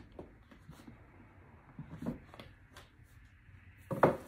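Handling of a MacBook Air's white cardboard box: faint rustles and light taps, then a short, louder thump about four seconds in as the lid comes off the box.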